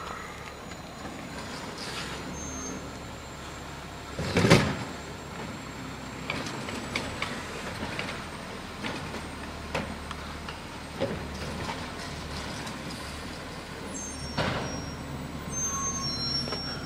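Automated side-loader garbage truck working down the street: its diesel engine runs steadily while carts are lifted and emptied into the hopper. A loud burst about four seconds in, a string of knocks and bangs after it, and another burst near the end.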